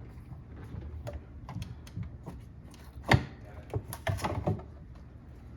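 Scattered clicks and knocks of refrigerator ice dispenser parts being handled and fitted back together, with the sharpest knock about three seconds in and a quick cluster a second later.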